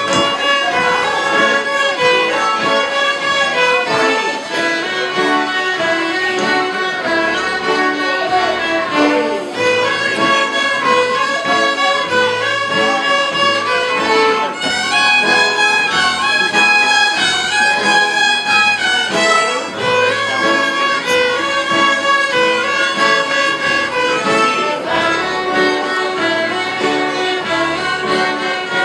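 Several fiddles playing a tune together, bowed by young children on small fiddles alongside adult fiddlers, the notes running on without a break.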